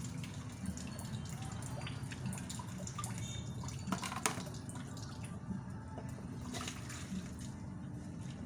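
Water running and dripping in a sink while dishes are washed, with a few light clicks and knocks. The sharpest knock comes about four seconds in.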